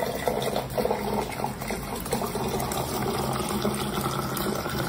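Water running from an Electrolux countertop water purifier's spout into a plastic cup, a steady filling stream.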